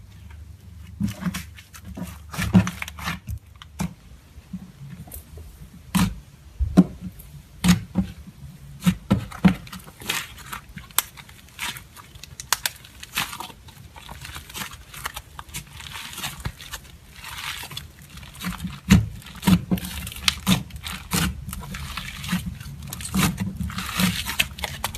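Butter slime being squished, pressed and stretched by hand, giving irregular sticky clicks, pops and crackles.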